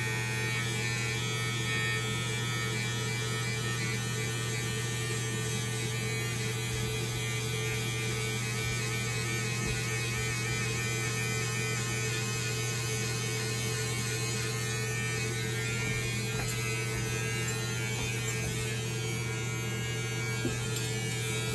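Electric hair clippers running with a steady hum while trimming hair at the back of the neck and around the ear.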